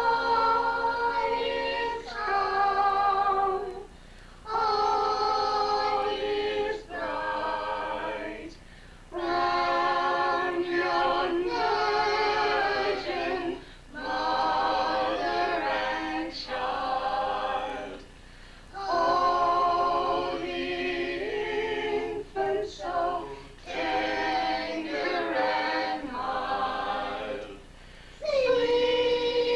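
A family of adults and children singing a Christmas carol together without accompaniment, in phrases a few seconds long with short pauses for breath between them.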